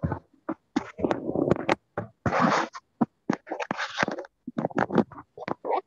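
Irregular bursts of scratching and rustling noise over a video-call microphone, cutting in and out abruptly between bursts.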